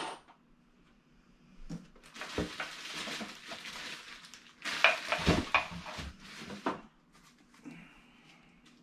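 Rustling and crinkling of packaging mixed with irregular clicks and knocks as goods are handled and moved about. The handling is busiest about five seconds in, then quiets down.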